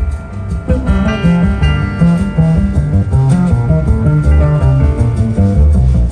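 Instrumental music with a busy bass line moving from note to note under higher sustained notes.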